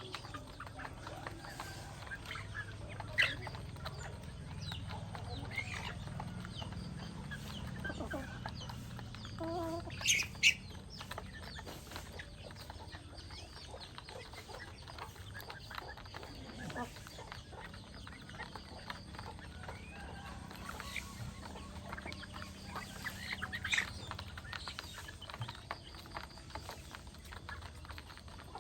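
A flock of chickens clucking, with many small ticks and taps throughout and a few short, louder calls, the loudest about ten seconds in.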